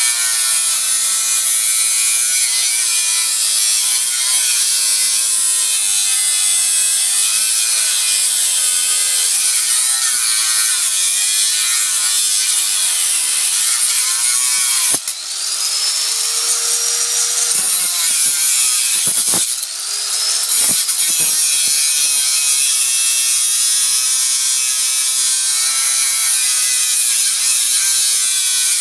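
Angle grinder with a cut-off disc cutting through a hard drive's metal: a continuous high grinding screech, the motor's pitch wavering as the load changes. Around the middle the cutting noise briefly drops twice, with the motor's pitch sliding.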